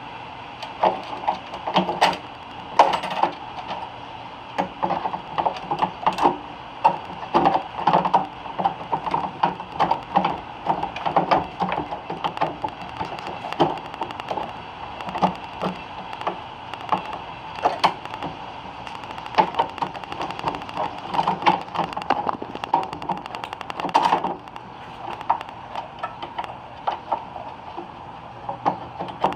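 Irregular clicks, taps and knocks of hand tools and small parts being handled inside a microwave oven under repair, over a faint steady hum.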